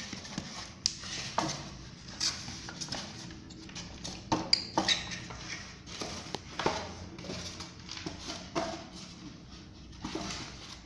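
Metal parts of a coffee grinder clinking, knocking and rattling as they are handled and tipped out, in irregular strikes with the sharpest ones about four and a half seconds in.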